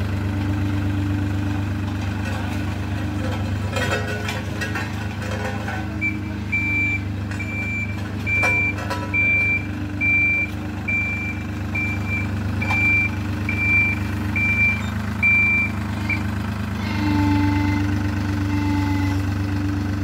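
Diesel engine of a Dynapac tandem asphalt roller running steadily. From about six seconds in to about sixteen seconds its reversing alarm beeps a little more than once a second.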